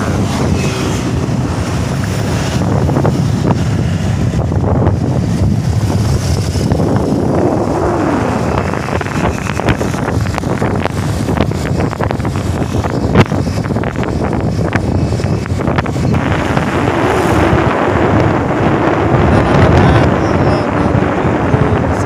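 Wind buffeting the microphone of a moving motorcycle, with the engine's hum rising and falling in pitch underneath. A single sharp knock about thirteen seconds in.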